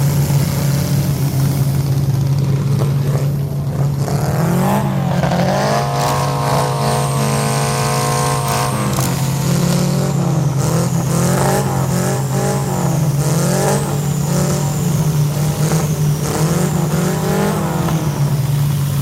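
A large engine running steadily, revved up and down several times in repeated surges.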